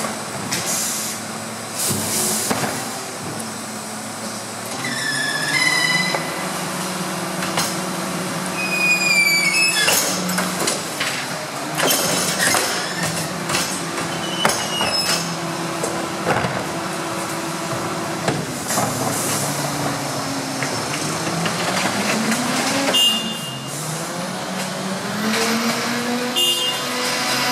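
Rear-loader garbage truck's engine and hydraulic bin lifter running with a steady hum while a wheelie bin is lifted and tipped into the hopper, with scattered clanks and knocks and a few brief high squeals. Later the engine note rises as the truck pulls away.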